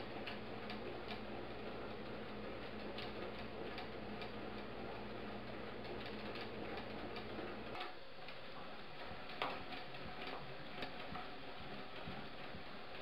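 Mechanical bird kinetic sculpture's wing-flapping linkage running, making clicks about once a second. A steady low hum underneath drops away about eight seconds in.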